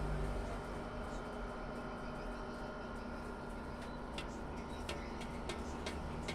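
Birds pecking at feed: sharp, irregular taps begin about two-thirds of the way in and come a few times a second, over a steady low hum.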